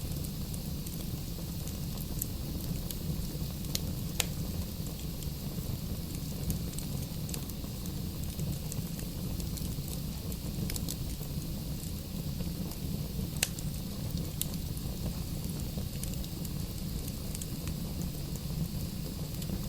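Wood fire burning in a fireplace: a steady low rumble of flames with scattered sharp crackles and pops of the burning logs, the loudest about four seconds in and again past the middle.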